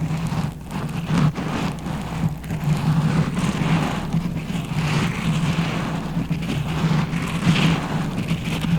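Close-miked scratching and crackling against a microphone, the kind made in scalp-massage ASMR, with a steady low hum underneath.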